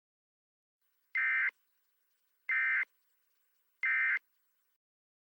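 Emergency Alert System end-of-message data bursts: three short, buzzy two-tone digital chirps, each about a third of a second long and about 1.3 s apart. They are the signal that the alert has ended.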